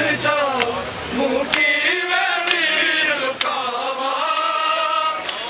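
Men chanting a nauha, a Shia lament, together, with sharp hand-on-chest matam strikes keeping time about once a second.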